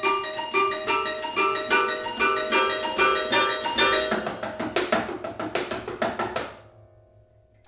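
Toy piano music with small percussion: quick repeated bright struck notes that die away about six and a half seconds in.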